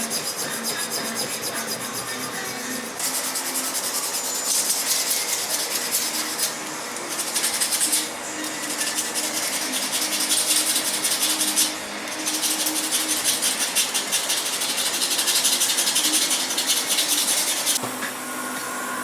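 Knife handle scale being shaped with an abrasive: a steady scratchy rasping of rapid strokes that breaks off briefly about six and a half seconds in and again around twelve seconds.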